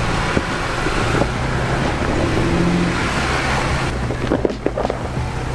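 Off-road 4x4 vehicle's engine running as it crawls the rock ledges, heard under a noisy, windy haze, with a few sharp clicks and crunches near the end.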